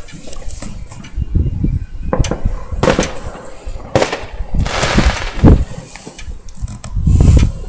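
Fireworks going off: irregular sharp bangs and crackles with several deep booms, the loudest near the end.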